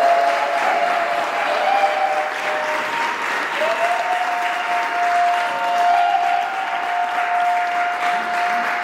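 Audience applauding, a dense, steady clapping that fills the hall. A long, steady high note sounds over it from about three and a half seconds in.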